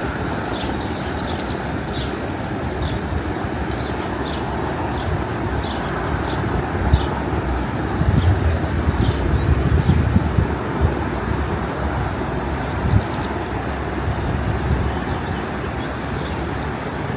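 A small bird trills several times over a steady rushing background noise, with fainter chirps between the trills. A low rumble swells up in the middle and fades again.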